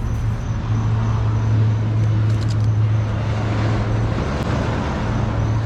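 Motor vehicle noise: a steady low hum under a rushing road-traffic sound, with a few faint clicks about two and a half seconds and four and a half seconds in.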